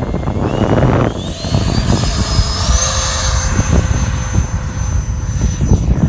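Twin electric ducted fans of a Freewing F-15 model jet throttling up for takeoff. The whine rises in steps over the first three seconds, then holds at a steady high pitch, over heavy wind rumble on the microphone.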